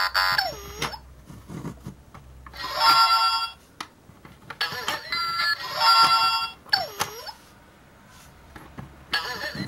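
Electronic sliding-tile puzzle toy playing short beeping tune phrases and sliding tones from its small speaker, in bursts with pauses between, along with light clicks of the plastic tiles being slid.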